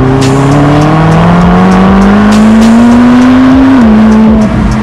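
McLaren 720S twin-turbo V8 through a QuickSilver ceramic-coated sport rear exhaust section, pulling hard under acceleration. The engine note climbs steadily in pitch for about three seconds, then drops sharply with an upshift near the end.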